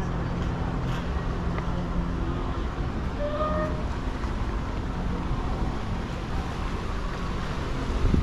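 Outdoor street noise with a vehicle engine humming steadily, the hum dropping away about three seconds in.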